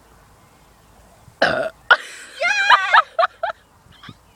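A girl burping, brought on by gulping fizzy drink. After a quiet second and a half come a short loud belch, then a longer belch whose pitch wavers, and two brief bursts.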